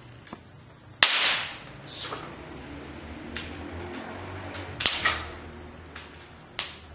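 Flash capacitor of a disposable camera discharged by shorting its leads with the metal jaws of pliers: a sharp electric snap about a second in, then several more snaps, one almost as strong near the end, as the charge is spent so the board is safe to touch.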